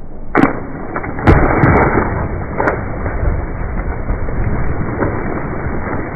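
A person diving into a swimming pool: a sharp slap, then a louder splash about a second later, followed by steady churning and spraying water.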